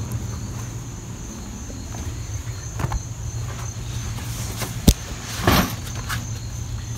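Steady low background hum with a thin, high steady whine above it. About five seconds in there is a sharp click, then a short scraping rush, as a sliding glass window is unlatched and pushed.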